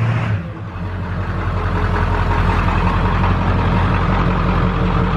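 Pickup truck's engine idling steadily through a newly installed exhaust stack, with a short louder burst right at the start.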